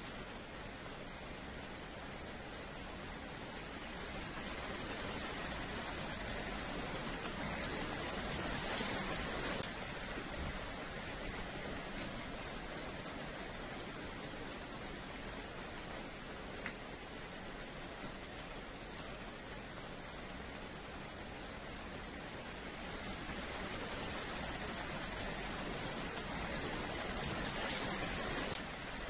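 Steady rain falling on a paved yard, a continuous hiss that grows louder twice for several seconds and then eases back sharply.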